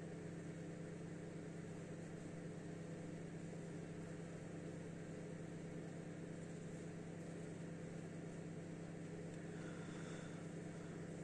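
Steady low mechanical hum with an even background hiss, unchanging throughout.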